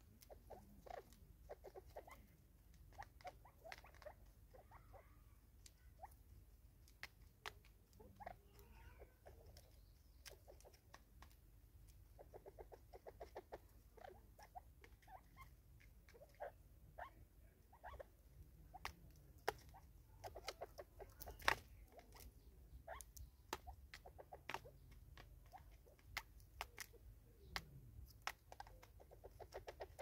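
Faint, quick runs of sharp ticks and taps as Natal spurfowl and a crested francolin peck seed from a plastic bottle feeder on a wooden stump. One tap about two-thirds through is louder than the rest, over a low steady rumble.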